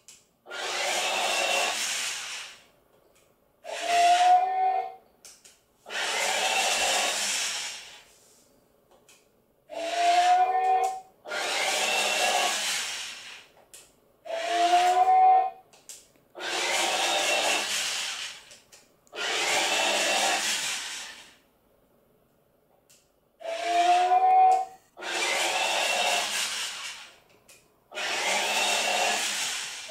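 A toy humanoid robot walking while it plays its electronic sound effects: steady hissing bursts like escaping air, each about two seconds long, alternate with shorter rising electronic whirs, with brief silences between.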